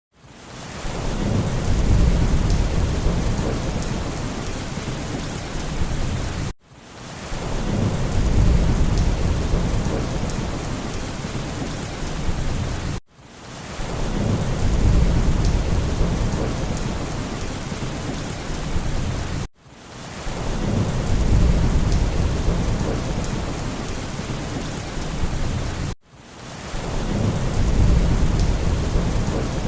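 Steady heavy rain hiss with a low thunder rumble that swells and fades. It is the same short stretch of recording looped about every six and a half seconds, with a sudden brief dip at each join before the rain fades back in.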